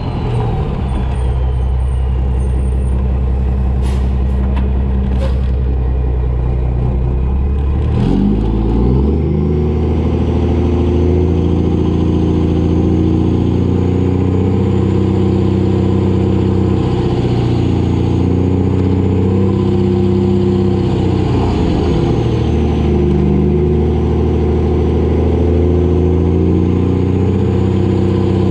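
Mack semi truck's diesel engine running under load on the road. The engine note steps and glides as it shifts gears, about a third of the way in and again past three-quarters of the way.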